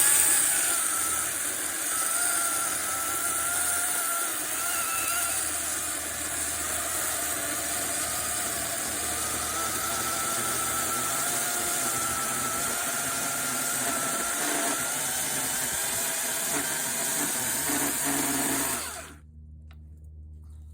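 Ryobi 40-volt battery chainsaw with a 14-inch bar running steadily while cutting through an oak log about 8 inches across. It stops suddenly about 19 seconds in.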